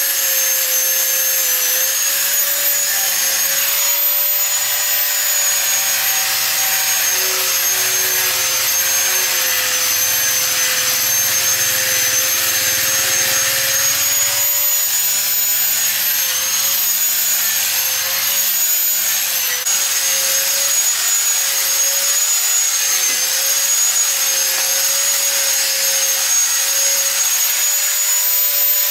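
Electric angle grinder running continuously with a steady high whine, grinding rusty steel; the whine's pitch wavers and dips slightly as the disc is pressed into the metal.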